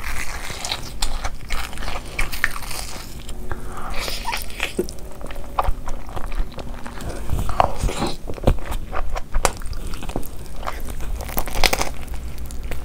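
Close-miked eating: crunchy bites into fried, crumb-coated food such as Cheetos-coated rice paper rolls and a Kurkure burger, then chewing, with many short, sharp crunches in irregular succession.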